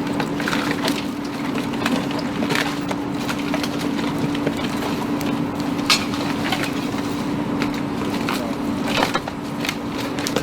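Fire-damaged wooden siding and sheathing cracking and splintering as it is pried off a house wall, with several sharp snaps at irregular intervals, the loudest about six seconds in, over a steady low hum. The wall is being opened up to check for hidden fire spread behind it.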